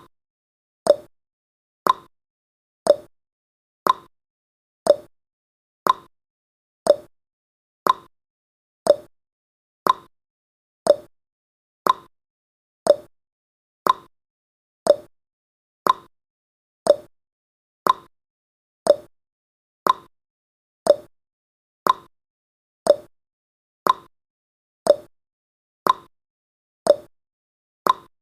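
Clock-tick sound effect of a countdown timer, one sharp tick every second in a steady, even rhythm.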